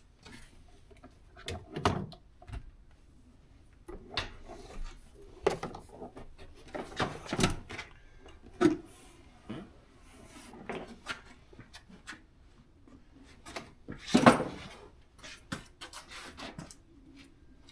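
Irregular clicks, knocks and rubbing from hand work under a Jeep seat as its wiring connectors are unclipped and pried loose with a screwdriver, with one louder knock about fourteen seconds in.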